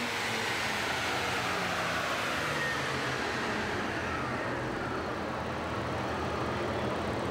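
Supercharged 2005 Ford Mustang 4.0-litre V6 on a chassis dyno winding down after a full-throttle pull. The engine and supercharger whine slide slowly down in pitch over a steady rushing noise as the rollers coast down, settling toward idle near the end.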